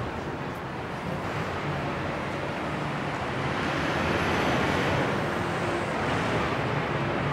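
City street traffic noise: a steady wash of passing vehicles, swelling slightly around the middle.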